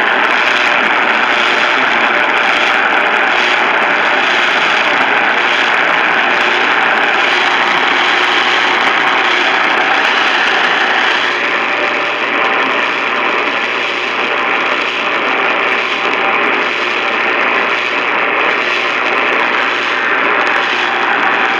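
Steady, loud hiss of radio static from a receiver, with no tones or voice, growing slightly more uneven about halfway through.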